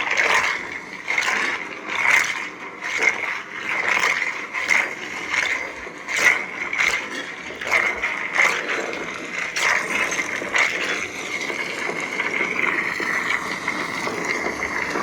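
Lightsaber sound font (the 'Earth' font) playing through the saber's speaker: a steady hum with a quick run of short swing effects for about the first eleven seconds, then the hum alone.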